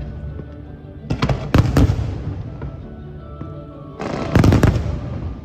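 Aerial fireworks bursting in two volleys, one about a second in and one about four seconds in, each a cluster of sharp bangs followed by a rumbling, fading tail.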